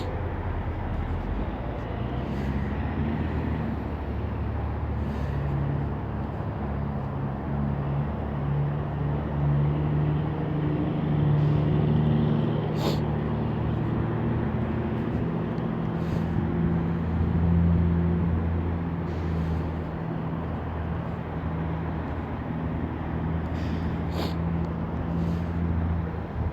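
An idling vehicle engine, a steady low hum whose pitch drifts slightly, with a few short clicks now and then.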